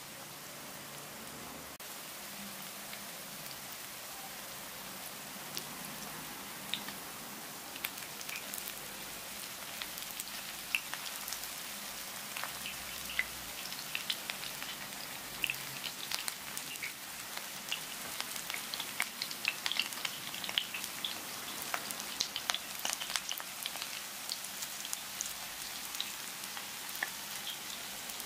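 Grated-potato fritters shallow-frying in oil on medium heat, browning underneath: a steady sizzle with sharp crackles and pops that come more and more often after the first several seconds.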